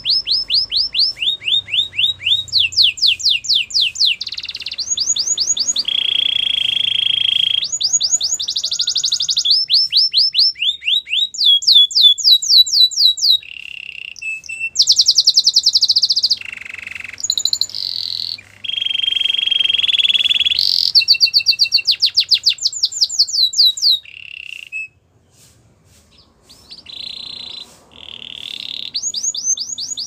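Canary singing a long, continuous song of rapid trills. Fast runs of repeated down-sweeping notes alternate with steady buzzy rolls, broken by a short pause about five seconds before the end.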